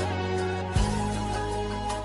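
Background music: sustained instrumental chords over a deep bass, changing chord about three-quarters of a second in.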